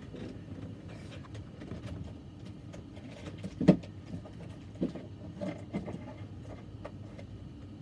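Rustling and handling of small packages in plastic bags, with a sharp knock about halfway through and a few lighter knocks after it.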